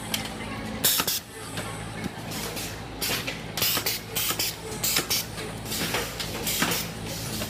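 Factory machinery running with a steady low hum, broken by frequent short hissing bursts like compressed-air blasts at irregular intervals.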